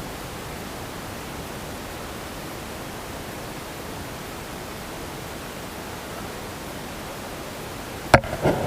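Steady, even rushing hiss of outdoor noise, with one sharp knock a little before the end followed by a short rustle.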